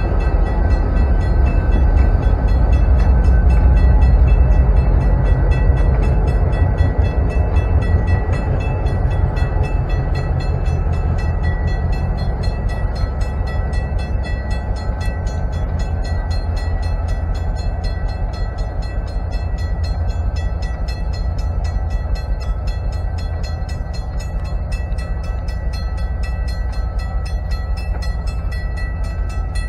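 EMD GP38 diesel-electric locomotive, its two-stroke V16 engine running with a deep, even rumble as it passes slowly close by. The rumble is loudest a few seconds in and then gradually fades as the locomotive moves away.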